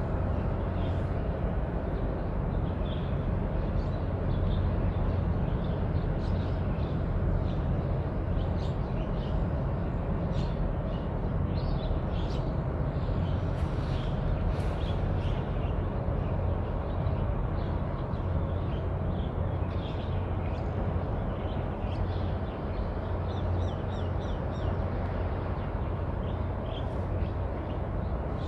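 Steady low outdoor rumble with small birds chirping on and off throughout.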